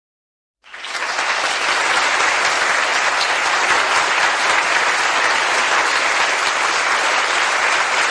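Applause sound effect: a crowd clapping, fading in about half a second in and quickly settling into steady, dense applause.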